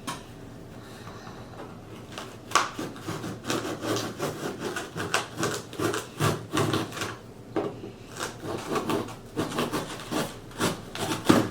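A knife sawing and scraping through the tape and cardboard of a shipping box in irregular strokes, with a sharp scrape about two and a half seconds in and another near the end.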